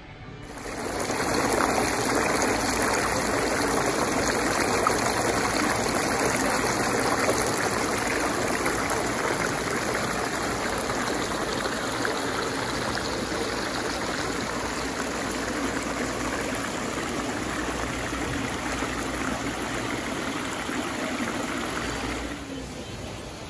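Small artificial waterfall splashing into a rock pool: a steady rush of falling water that starts about half a second in and fades away near the end.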